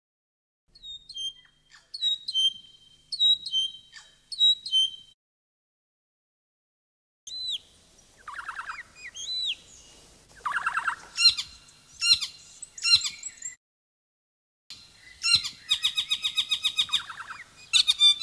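Recorded calls of a New Zealand saddleback (tīeke). First come four short whistled phrases about a second apart. After a pause there is a run of louder calls with sweeping notes, and after a short silence a fast chattering series of repeated notes.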